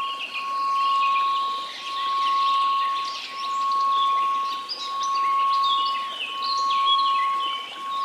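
Steady 1098 Hz pure tone that swells and dips in loudness about every second and a half, with a scatter of high tinkling notes above it.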